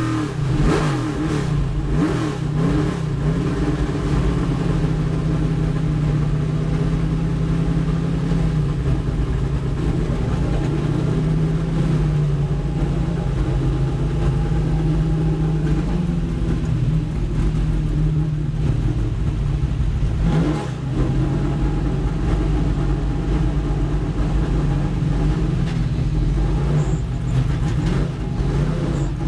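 Race-prepared Chevrolet Nova's V8 engine heard from inside the cockpit as the car slows to a low speed. The engine note wavers in the first few seconds, then runs at low, steady revs with road and wind noise.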